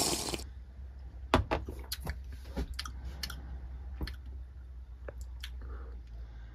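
A man's mouth sounds after a swig of 40% anise liqueur: scattered small smacks and clicks as he swallows and works his mouth, over a low steady hum. A short burst of hissing noise ends just at the start.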